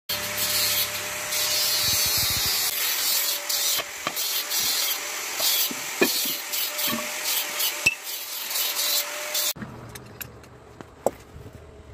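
A loud rasping hiss with a few sharp metal knocks, cutting off suddenly about nine and a half seconds in. After that only scattered light clinks are left.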